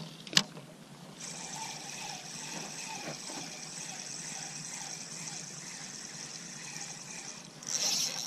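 A sharp click about half a second in, then a spinning reel being cranked steadily, a soft even whirring hiss of its gears and line that gets louder near the end.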